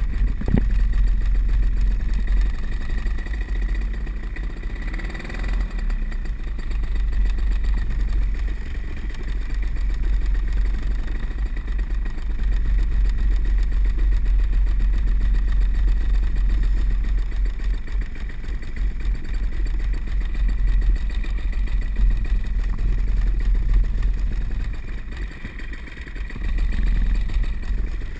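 Backpack paramotor engine running steadily, with a heavy low rumble on the helmet camera's microphone; the level dips briefly and comes back up near the end.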